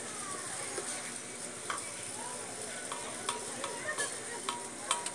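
Cotton candy machine running with a steady hiss. A series of sharp clicks joins it in the second half.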